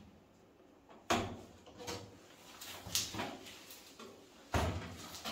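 A few knocks and scraping thuds as a windowsill board is shifted and set in a window opening, the longest and loudest near the end.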